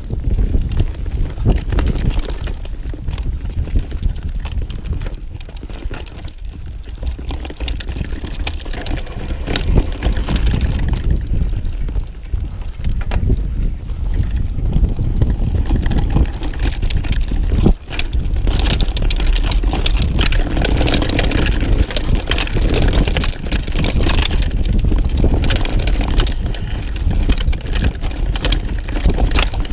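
Mountain bike riding fast down a dirt forest trail: tyres rumbling over the ground, and the chain and frame rattling and clattering over bumps, with wind buffeting the microphone. The rattling gets busier and louder in the second half.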